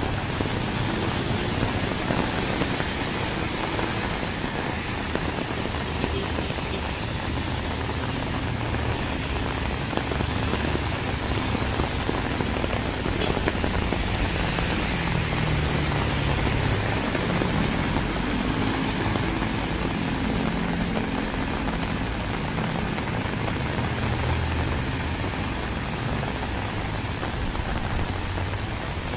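Heavy rain falling steadily, with vehicle engines passing on the wet highway, most noticeably in the middle and latter part.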